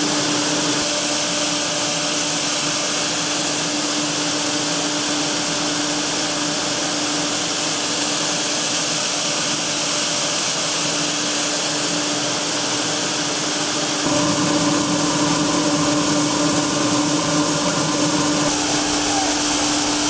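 Farm grain-handling machinery running with a steady hum under the hiss of barley grain pouring. About 14 seconds in the sound changes, turning fuller and a little louder.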